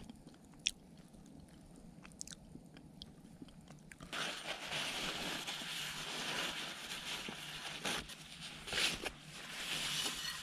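Kitchen paper rubbing and crinkling as it wipes oil out of a small black frying pan, starting about four seconds in and swelling louder twice near the end. Before that, only a few faint sharp clicks.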